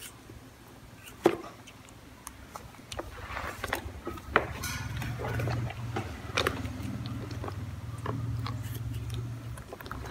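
Scattered sharp clicks and knocks as a baby monkey bites at an apple and small hands handle a plastic baby-walker toy, with a low steady hum through the second half.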